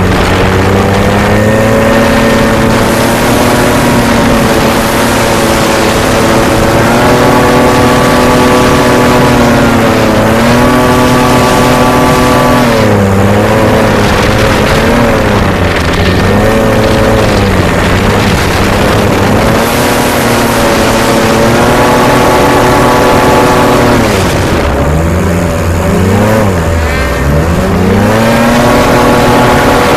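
Racing hovercraft engine running hard under a steady rush of noise. Its pitch holds high, then repeatedly drops and climbs again as the throttle is eased and reopened, most deeply about halfway through and again a few seconds before the end.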